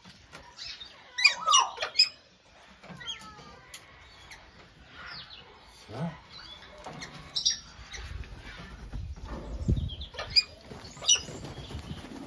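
Galah cockatoos giving short squeaky calls, several in quick succession about a second in and more scattered through, with the clatter and knocks of an aluminium stepladder being folded and handled.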